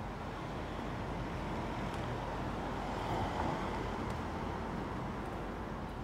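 Steady street noise from traffic, rising a little about halfway through.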